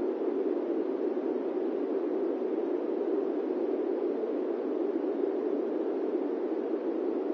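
Electric fan running steadily: an even, unbroken whooshing noise, strongest in the low-middle range, with no pulsing or changes.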